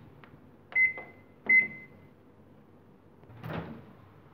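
Microwave oven keypad beeping twice as the cooking time is keyed in, two short high beeps less than a second apart, followed by a soft bump about three and a half seconds in.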